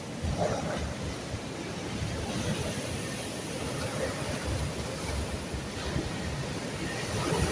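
Sea waves washing onto the shore in a steady rushing wash, with wind gusting on the microphone in irregular low rumbles.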